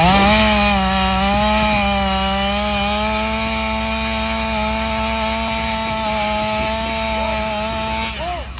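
A small engine revs up at once and holds a steady high speed for about eight seconds, then drops off and stops near the end.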